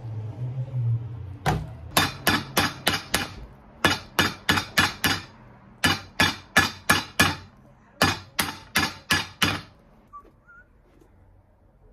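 Hammer blows on a boot's rubber sole, in four quick runs of about six strikes each, some three strikes a second.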